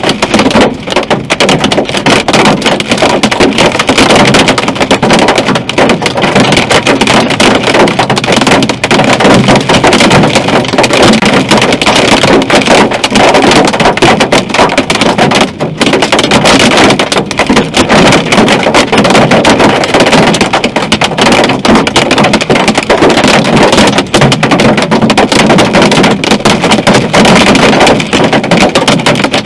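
Hail and heavy rain pelting a car's roof and windscreen in a loud, dense, unbroken patter of hits.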